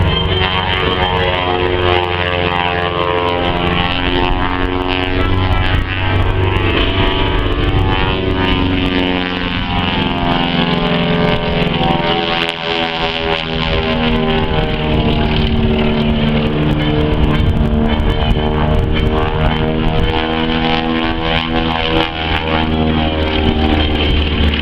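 The twin Pratt & Whitney R-985 radial engines of a Beechcraft Model 18 running hard during aerobatic flight, their pitch slowly rising and falling as the plane manoeuvres. Airshow music plays underneath.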